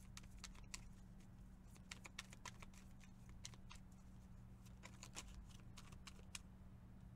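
Tarot cards being shuffled by hand: faint, irregular crisp clicks and flicks of card edges, over a steady low hum.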